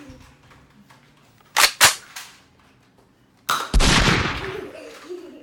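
Two quick sharp cracks, then a louder bang with a long fading rumble, like gunshots.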